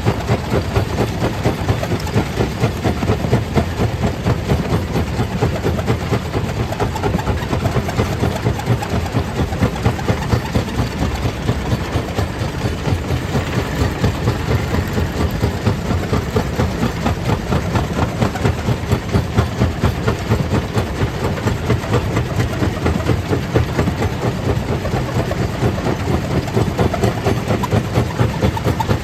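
Stone crusher plant machinery running continuously: a steady mechanical noise with a fast, regular pulse.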